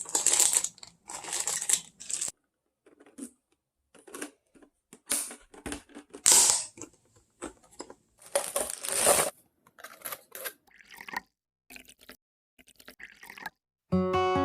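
Short bursts of plastic crinkling and crackling, like PET bottles being handled, each cut off abruptly by a spell of silence.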